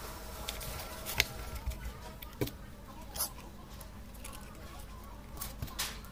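Scattered clicks and light taps as a mini projector's plastic housing, wire connectors and flat ribbon cable are handled and fitted together. The sharpest click comes a little over a second in.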